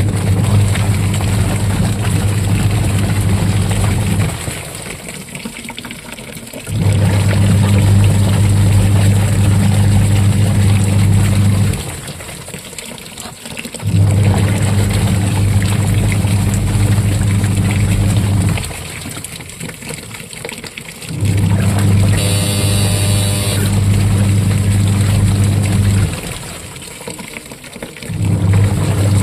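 Washing machine running its wash cycle: the motor hums in stretches of about four to five seconds, with pauses of about two seconds as the wash action stops and reverses, and water sloshing in the tub. A brief high-pitched tone sounds about three quarters of the way through.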